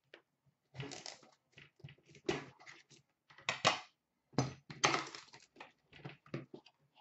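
Cardboard hockey card box being handled and tipped, its packaging giving irregular rustling scrapes and light taps as the stuck contents are worked loose.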